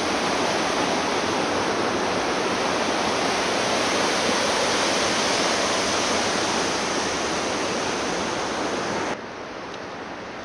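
Fast mountain river rushing over rocks in white-water rapids, a steady loud rush of water. It cuts off suddenly about nine seconds in, leaving a much quieter outdoor background.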